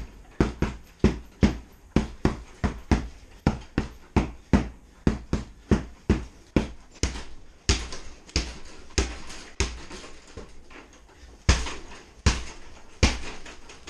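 Heavy punching bag struck over and over with a tomahawk, about two hard thuds a second with a short pause near the end.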